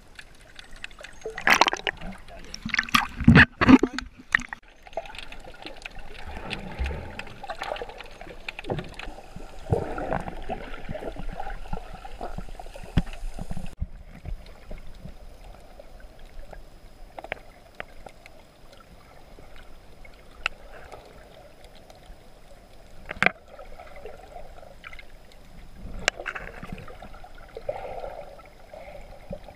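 Sea water moving around an underwater camera: gurgling and sloshing, with a cluster of loud sharp knocks about two to four seconds in and a couple of single clicks later on.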